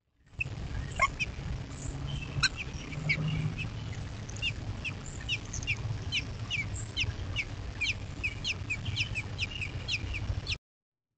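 American robin nestlings begging: a rapid series of thin, high, falling chirps, sparse at first and coming several a second from about halfway through. Two longer falling calls sound in the first few seconds, and the sound cuts off just before the end.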